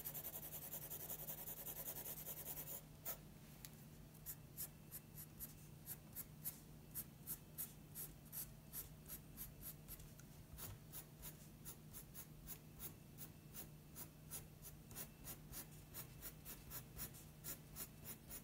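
Pencil scratching on paper as it shades: a continuous scratching for about the first three seconds, then short, quick hatching strokes, about three a second.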